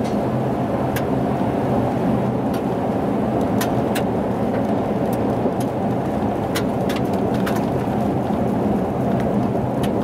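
Car driving on a gravel road, heard from inside the cab: a steady rumble of tyres on gravel and the engine running at cruising speed, with scattered sharp ticks of stones kicked up against the car.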